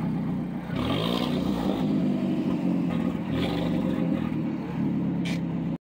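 Alfa Romeo 4C's turbocharged four-cylinder engine running, with a brief rev rising about a second in. The sound cuts off abruptly at the very end.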